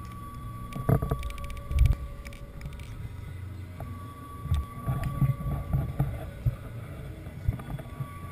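Wind rumbling on the camera's microphone in irregular gusts, with two sharp knocks from the camera being handled about one and two seconds in.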